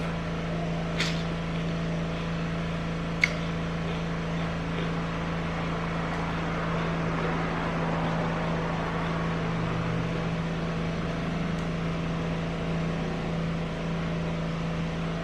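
Steady low hum of room background noise, like a running appliance, with two light clicks about one and three seconds in.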